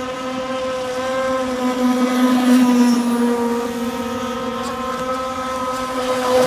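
Radio-controlled racing speedboat running flat out, its motor a steady high-pitched whine. The whine grows louder and rises a little in pitch about two and a half seconds in, dips, then swells again near the end as the boat comes closer.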